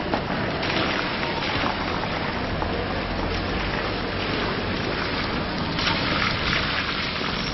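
Cars moving along a wet street: a steady hiss, like tyres on wet road, over a low engine rumble, with the hiss louder briefly near the start and again near the end.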